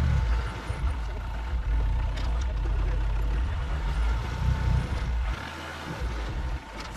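Delivery truck's engine running from inside the cab while driving, a steady low drone with road noise, its pitch shifting and briefly dropping near the end as the engine speed changes.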